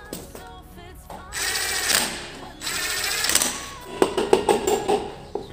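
Background music, with a dense mechanical rattling whirr of about a second and a half, starting a little over a second in.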